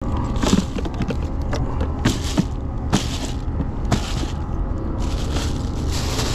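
Hollow knocks and rustling as hands rummage through a cooler box of caught fish, with a metal lip-grip tool knocking against it. About six sharp knocks in the first four seconds, over a steady low rumble.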